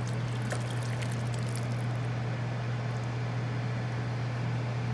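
Gravy poured from a steel pot through a fine mesh strainer, a steady splashing of liquid, over a constant low hum.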